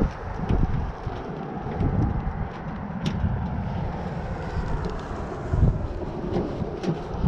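Low, uneven rumble of wind on the microphone, with a few faint clicks.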